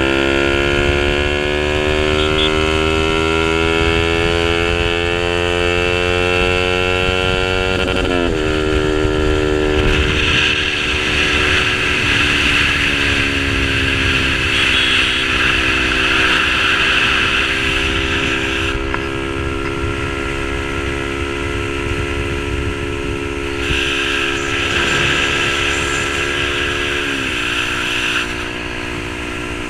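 Yamaha R15 V3's single-cylinder engine through an SC Project aftermarket exhaust, pulling under acceleration. The pitch climbs steadily, drops suddenly about eight seconds in as it shifts up, holds fairly level, then drops again near the end at the next upshift.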